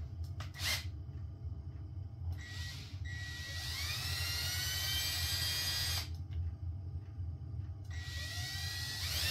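Electric drill boring out the too-small mounting holes of an SO-239 coax connector's flange, run twice. It starts about two seconds in, rising in pitch as it spins up, stops suddenly near six seconds, then starts again near the end. A few handling clicks come right at the start.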